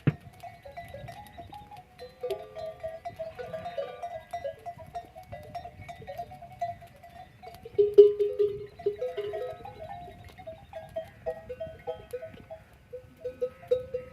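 A herd of livestock calling continuously, with many short, wavering bleat-like cries overlapping, loudest about eight seconds in. Wind rumbles on the microphone underneath.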